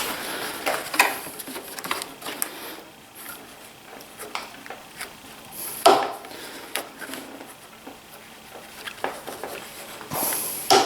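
Scattered metallic clicks, clinks and knocks from hand tools and metal parts being handled and fitted on the planer, with one sharper knock about six seconds in and a busier stretch of handling near the end.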